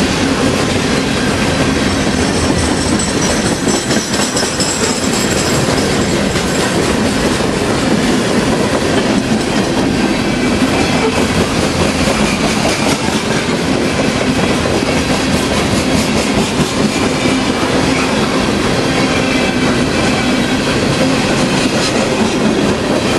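Freight cars of a rock train rolling past close by: a steady, loud rumble of steel wheels on rail with clickety-clack over the rail joints. Faint high wheel squeal comes and goes, about two seconds in and again around the middle.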